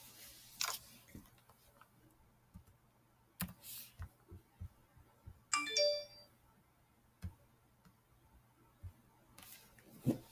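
Faint, scattered computer clicks with soft rustling as the screen recording is being wound up, and a short electronic chime of several pitched tones a little past halfway.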